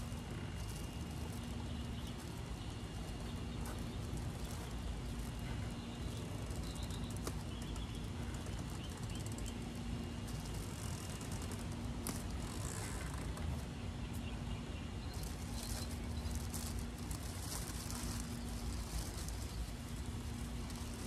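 Plastic bag around a tree's root ball being cut open with a knife and pulled apart by hand, with intermittent crinkling, mostly in the second half, over a steady low outdoor hum.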